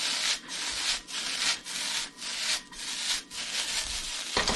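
Fried rice sizzling in a hot nonstick pan while long wooden chopsticks stir and scrape through it, about two strokes a second, with a knock near the end.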